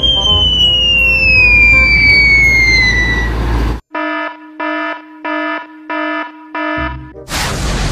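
Edited sound effects: a long whistle falling steadily in pitch over a low rumble, cut off abruptly about four seconds in. Then five identical buzzer beeps, evenly spaced at about one and a half a second, and a loud noisy crash starting near the end.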